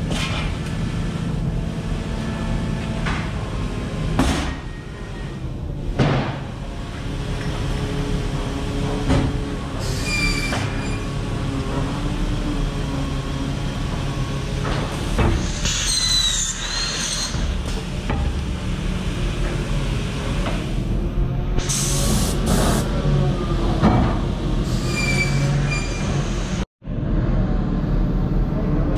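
A CNC upcut saw and the cut-room machinery running, with heavy wooden timbers knocking on a roller conveyor and several short, high-pitched squealing whines as the saw runs through the lumber.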